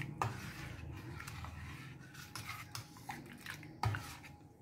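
Steel spoon clinking and scraping against a stainless steel bowl while stirring milk that has just curdled into chhena and whey, with a few sharp clinks, the loudest nearly four seconds in.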